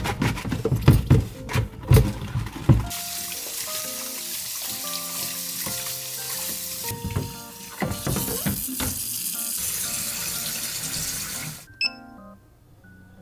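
Plastic humidifier parts knocking and clattering in a stainless steel sink, then a tap running as the parts are rinsed, the water cutting off suddenly near the end. Light background music plays throughout.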